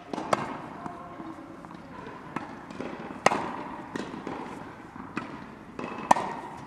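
Tennis balls struck with rackets and bouncing on an indoor court: a sharp pop about once a second, the loudest about three and six seconds in, each echoing in the large hall.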